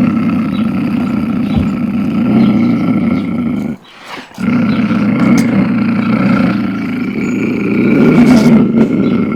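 Beast growl sound effect: a long, low, rough growl that breaks off about four seconds in, then a second long growl half a second later.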